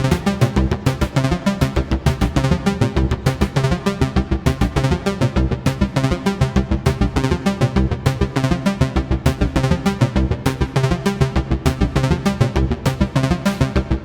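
Electronic music played live on analog synthesizers: a fast, steady pulsing sequence with a synth bassline from an Arturia MiniBrute 2S under Moog DFAM and Mother-32 parts, with reverb.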